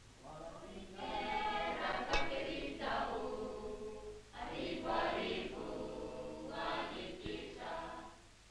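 A choir singing as background music, in phrases separated by short pauses.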